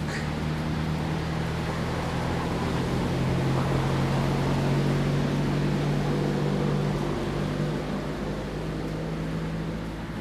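A steady, low engine hum that swells a little in the middle and eases off near the end.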